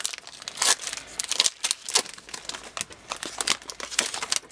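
Foil Pokémon booster pack wrapper crinkling in the hands as it is torn open: a dense, irregular crackle throughout.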